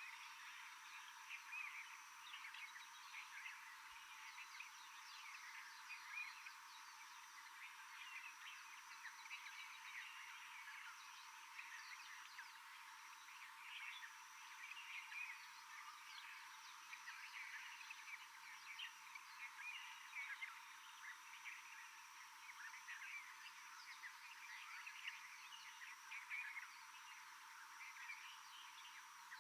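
Faint, dense chorus of many short chirping animal calls in a tropical rainforest, overlapping without pause, with a steady high-pitched buzz above them.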